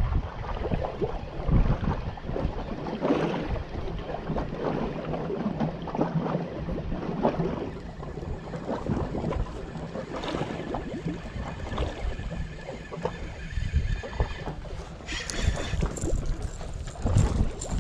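Small waves lapping and slapping against the shoreline wall, with wind buffeting the microphone. In the last few seconds a spinning reel is wound as a small fish is brought to the surface.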